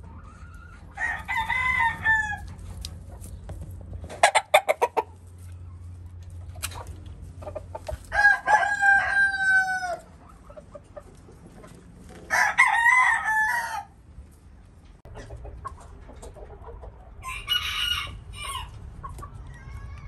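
Roosters crowing four times, each crow lasting one to two seconds, several seconds apart. About four seconds in there is a quick run of short, sharp sounds.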